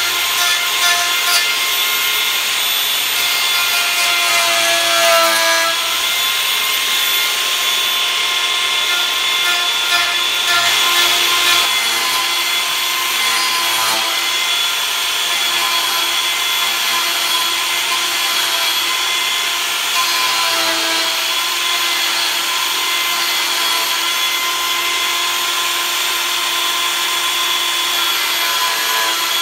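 Angle grinder with a carving or abrasive disc running steadily and grinding into oak, a high motor whine over a rasping hiss. Its pitch dips briefly twice, about five seconds in and again near twenty seconds, as the disc is pressed harder into the wood.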